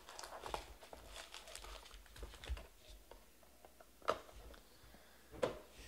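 Cardboard trading-card box being opened by hand: faint rustling and scraping of the lid and its contents, with two sharper clicks about four and five and a half seconds in.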